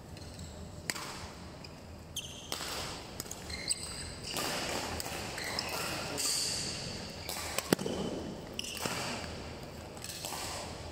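Badminton rally: rackets striking the shuttlecock several times as sharp hits, the loudest about three-quarters of the way through, with players' shoes squeaking on the court between shots.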